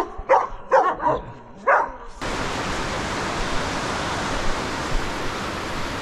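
A dog barking a few times in quick succession, then, from about two seconds in, the steady rush of a fast-flowing river.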